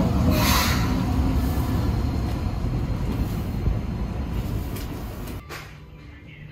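Rumble of a moving train heard from inside the carriage, with a brief hiss about half a second in, slowly getting quieter. It cuts off suddenly near the end to much quieter background sound.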